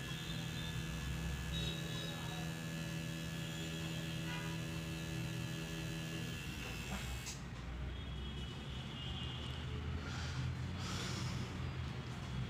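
Electric tattoo machine running with a steady buzzing hum as its needle fills in ink on artificial practice skin. About halfway through, the even hum gives way to a rougher, noisier buzz.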